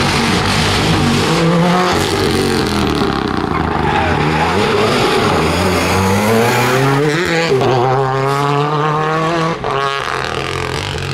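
Renault Clio rally car's engine revving hard through a sequence of bends. Its pitch repeatedly climbs and drops with gear changes and lifts, rises steeply to high revs about seven seconds in, and dips briefly near the end.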